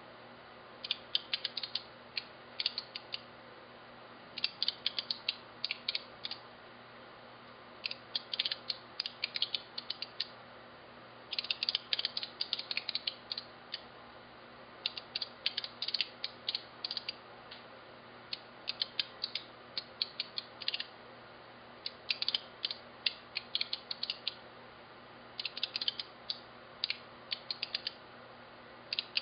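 Signalex electromagnetic flip-segment seven-segment displays clicking as their coils flip the segments one at a time. The clicks come in quick runs about two seconds long, every three to four seconds, over a faint steady hum.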